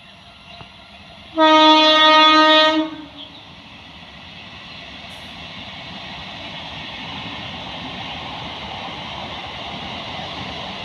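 EMU suburban train's air horn sounds one loud blast of about a second and a half, followed by the running noise of the approaching train, growing steadily louder.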